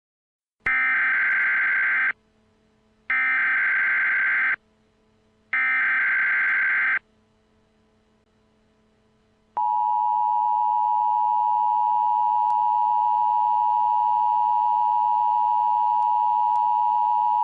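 Emergency Alert System SAME header: three identical buzzy digital data bursts, each about a second and a half long and a second apart. After a short pause comes the EAS attention signal, a steady two-tone alert held for about eight seconds, which marks the start of a new emergency message.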